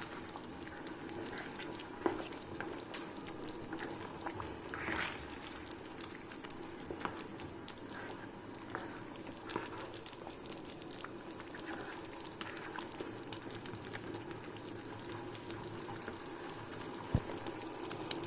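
Thick curry gravy simmering in a pan, bubbling steadily, with a ladle stirring through it and a few light clicks and one sharper knock near the end.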